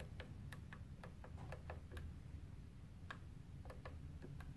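Faint, irregular small plastic clicks, about a dozen, as the controls and case of a Makita 18V LXT jobsite Bluetooth speaker are pressed and handled while it is being switched on, over a low steady room hum.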